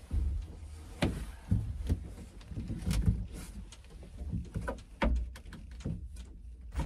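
Someone climbing out through the doorway of a wooden box hunting blind: irregular knocks and low thumps of boots and gear against the blind's wooden floor, walls and door frame.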